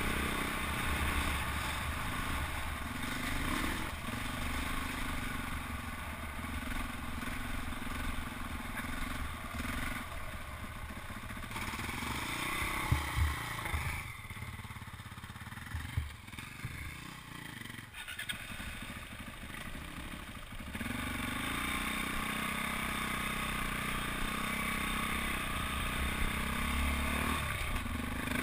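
KTM 400 EXC enduro bike's single-cylinder four-stroke engine running under way over a rough dirt track. Its pitch rises briefly, then the engine eases off for several seconds, with a couple of sharp knocks, before picking up again steadily.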